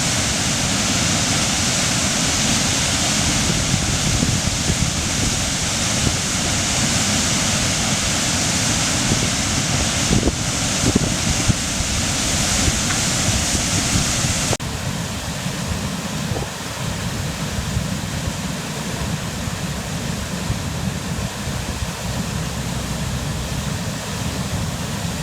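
Steady rush of a waterfall. About fifteen seconds in it drops abruptly to a quieter, duller rush.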